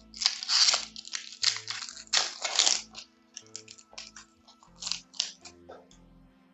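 Foil booster-pack wrapper crinkling and tearing in loud noisy rushes during the first three seconds, with lighter rustles and clicks of handled cards around four to five seconds in. Quiet background music with a repeating bass line runs underneath.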